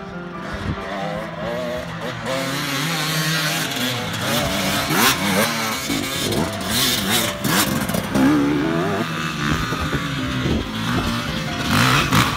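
Dirt bike engines revving hard under load as the bikes climb a steep sandy hill, the pitch rising and falling with the throttle in repeated bursts, loudest about halfway through and near the end.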